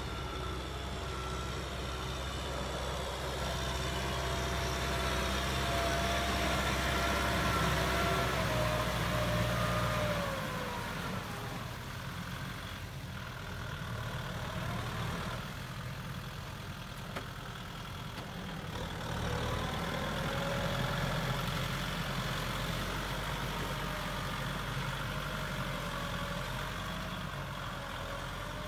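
Farm tractor's diesel engine running steadily as it pulls a load of rice sacks through mud. Its pitch falls about ten seconds in and the sound grows louder again near twenty seconds.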